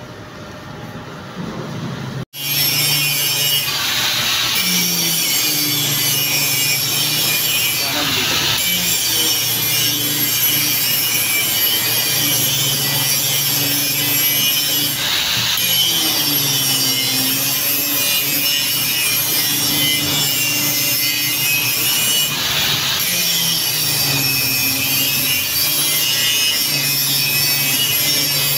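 An electric angle grinder starts about two seconds in and runs steadily, its disc cutting into a metal exhaust can, with a shrill hiss over the motor's whine. The whine dips in pitch every few seconds as the disc bites harder into the metal and loads the motor.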